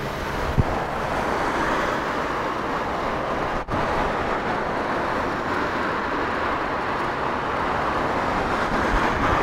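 Steady rush of wind and road noise while riding a Lemotion S1F (Inmotion L9) electric scooter at full throttle near its top speed of about 36–37 km/h. The sound cuts out for an instant a few seconds in.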